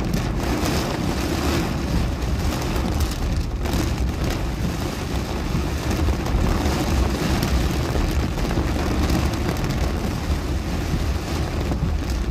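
Heavy rain beating on a car's windshield and roof, heard from inside the cabin over the steady low rumble of the moving car.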